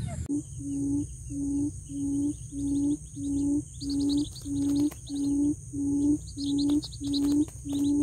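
Buttonquail calling: a series of short, low hoots repeated evenly about every 0.6 seconds, the call used to lure quail into a trap. Insects trill steadily and small birds chirp faintly behind it.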